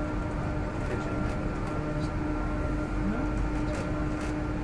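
Narita Airport Terminal 2 shuttle train, a cable-hauled people mover, running along its guideway, heard from inside the car: a steady low rumble with a constant hum and a few faint ticks.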